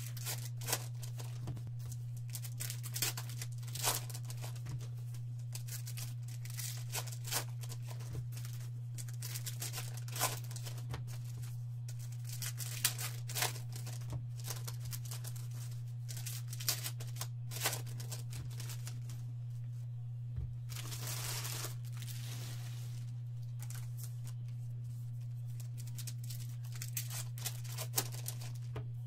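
Baseball card pack wrappers being torn open and crinkled by hand: many short crackling rips, with one longer rip about twenty seconds in. A steady low hum runs underneath.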